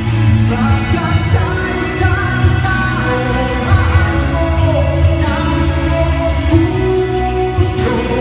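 A man singing live into a microphone over amplified music with a heavy bass line, his voice holding long notes and sliding between them.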